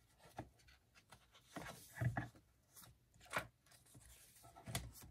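Paper and stickers being handled on a crafting table: scattered soft taps and rustles, about half a dozen over a few seconds.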